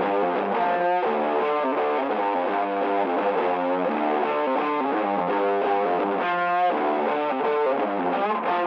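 Intro music: a distorted electric guitar playing a riff with effects.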